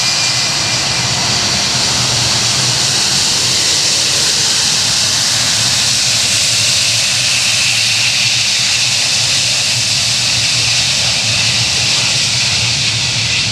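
Boeing 757-200 airliner's twin jet engines at low taxi power as it rolls slowly past close by: a loud, steady jet whine and hiss over a low hum.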